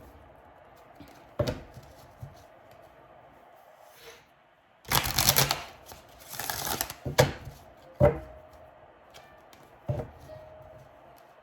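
Tarot deck being shuffled by hand: two brisk stretches of shuffling about halfway through, with a few single sharp taps before and after.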